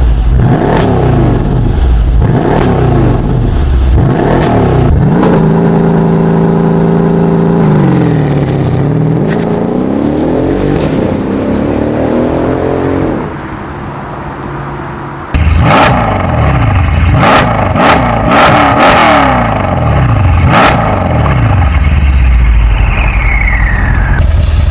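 Mercedes-AMG M157 5.5-litre twin-turbo V8 being revved: quick blips about once a second, then a long held rev that dips and climbs again before dropping off. About fifteen seconds in, a louder run of revs starts abruptly, with sharp cracks among them.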